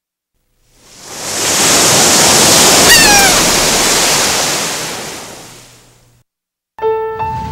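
A rush of surf noise swells up, holds and fades out over about five seconds, with a brief falling cry about three seconds in. Piano music starts near the end.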